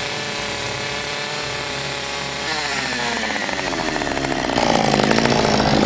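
Two-stroke Husqvarna chainsaw running, revved up about two and a half seconds in. Its pitch then sags and it gets louder near the end as the chain bites into a pine beam.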